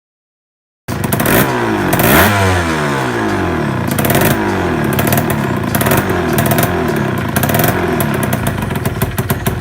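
TVS Suzuki Shogun's two-stroke single-cylinder engine running and being revved in repeated short blips, the biggest rev about a second after it cuts in, settling into an even idle near the end.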